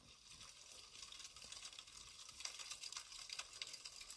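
Faint crackling fire sound effect: a soft hiss dotted with many small pops and snaps.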